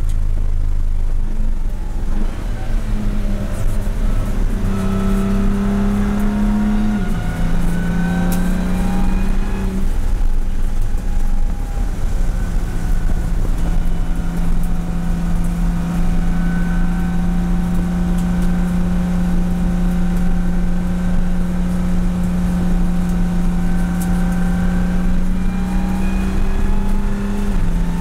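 A BMW M235i Racing's turbocharged inline-six heard from inside the cabin at racing pace. The engine note climbs, then steps down as the car slows for a corner. It then holds at a steady, slowly rising pitch through a long sweeping bend, with a gear change near the end.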